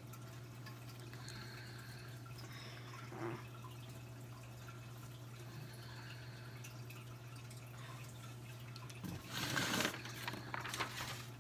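A steady low hum, with a short burst of noise and a few light clicks about nine seconds in.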